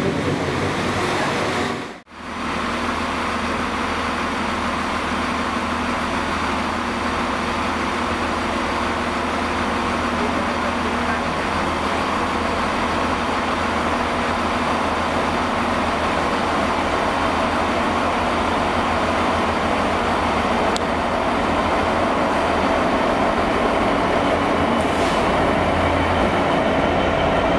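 A Class 66 diesel-electric locomotive, with its two-stroke V12 engine, hauling a freight train through a station: a steady engine drone that grows slowly louder as it approaches and passes close by, with a rising whine near the end. In the first two seconds, before a brief drop-out, a diesel passenger unit runs past.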